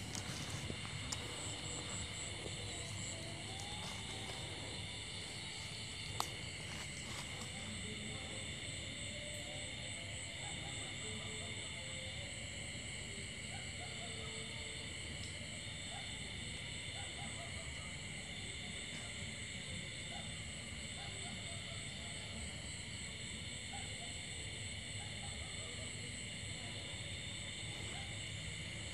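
Steady chorus of night insects: continuous high trilling and buzzing, some of it pulsing in even repeats, over a low hiss. A single sharp click comes about six seconds in.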